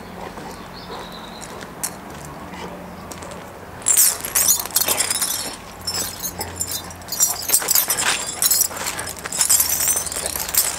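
A chained dog jumping up and playing with a man: metal chain rattling and clinking amid scuffling, in an irregular run that starts about four seconds in.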